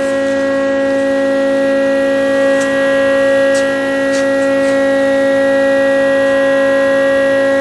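Pilot Pro CNC router's motors running with a steady electric whine of several fixed pitches, with a few faint ticks.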